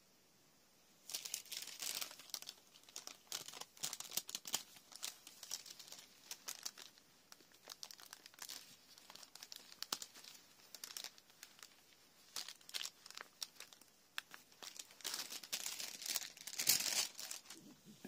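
Thin, translucent pattern paper being pulled and torn away from tailor's-tack threads on fabric. It crinkles and tears in a long run of irregular rustles and crackles that starts about a second in and is busiest near the end.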